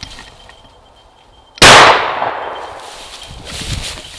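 A single shotgun blast fired at a flushing ruffed grouse about a second and a half in, sudden and very loud, its report fading through the woods over the next second or so.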